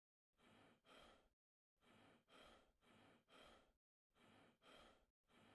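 Faint, quick breathing close to the microphone: short, soft breaths in and out, about one pair a second.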